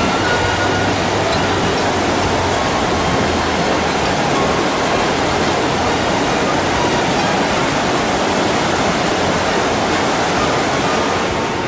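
Steady, loud rush of fast-flowing water.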